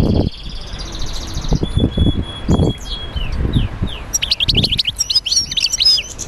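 Birds chirping: a few thin, steady whistled notes, then a quick run of rapid downward-sweeping chirps about four seconds in. Several low dull thumps come and go underneath.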